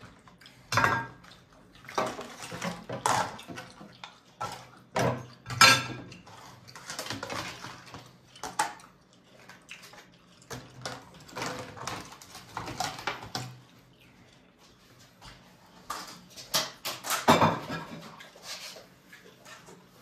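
Plates and cutlery clattering and knocking on and off as babies eat, in short irregular bursts with quieter gaps.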